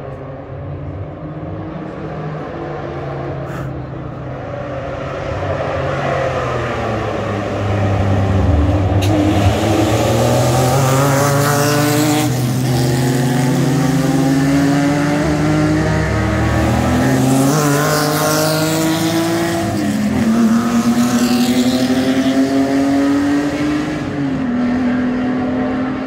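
Vintage sports racing cars accelerating past at full throttle. The engines climb in pitch and drop sharply at each upshift, several times, and are loudest as the cars pass in the middle.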